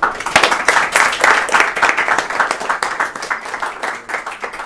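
Audience applauding. The clapping starts abruptly, is loudest over the first two seconds, then thins out toward the end.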